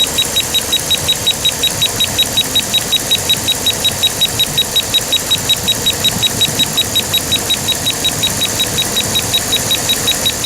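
1996 Dodge Ram Van 2500 engine idling, with a steady sharp ticking about five times a second. The engine has a random misfire that the codes put down to the fuel injection.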